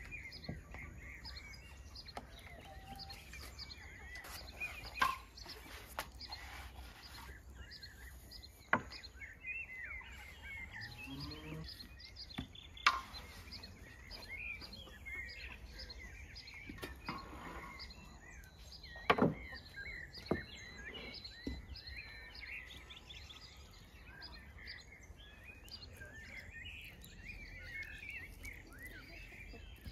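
Small birds chirping continuously in the background, with a few sharp knocks scattered through, outdoors with a low steady rumble of ambient noise.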